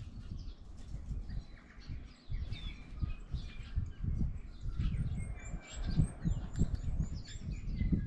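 Small birds, including house sparrows, chirping and twittering many times over, with a run of quick high notes in the second half. Under the birds runs a louder, uneven low rumble with soft thumps.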